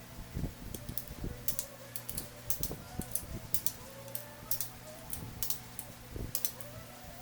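Irregular light clicks and taps, a few each second, of tools and metal parts being handled during engine assembly, over a steady low hum.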